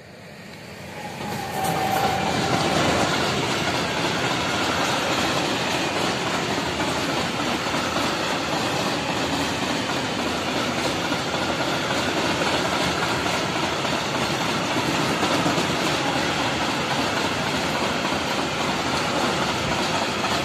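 Freight train of open wagons passing over a level crossing at speed. It builds to a loud, steady rolling noise about two seconds in and starts to fall away at the very end.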